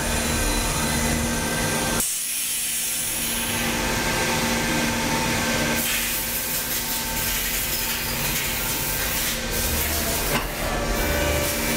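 Cincinnati Milacron Sabre 750 vertical machining center running, a steady hiss with a steady hum under it. About two seconds in the low hum drops out for a moment, and near six seconds the hiss grows brighter again.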